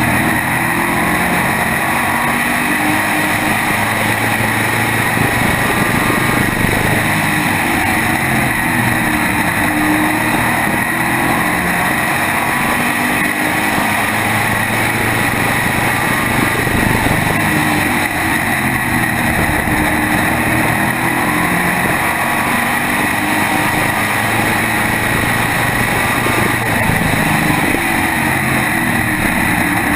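SK modified race car's small-block V8 running hard at racing speed, heard up close from a camera mounted on the car, with steady wind noise over it.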